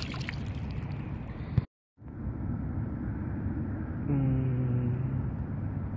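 Light splashing and dripping of water as a small released catfish swims off, then, after a brief dropout, a steady outdoor rumble. About four seconds in, a low droning tone with overtones lasts about a second, falling slightly.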